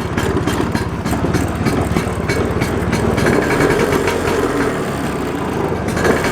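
Classic Vespa scooter's two-stroke engine idling steadily, with a fast, even putter.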